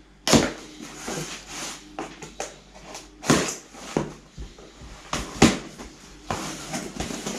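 Cardboard parcel being opened: a knife slitting the packing tape, and the cardboard scraping, rustling and knocking in irregular sharp bursts.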